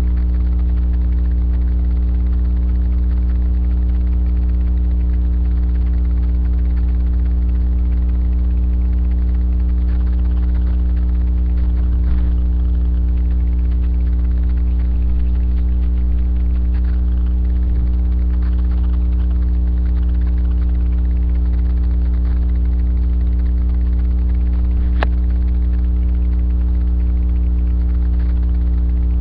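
Steady, loud electrical mains hum with a stack of overtones, picked up by a webcam's microphone. A single faint click comes near the end.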